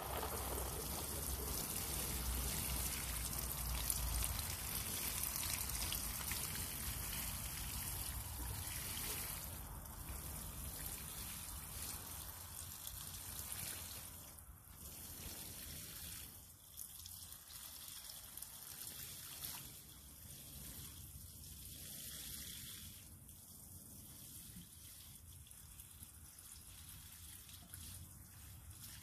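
Water showering from a watering can's rose onto plants and soil. It is louder in the first half and fainter after about fifteen seconds.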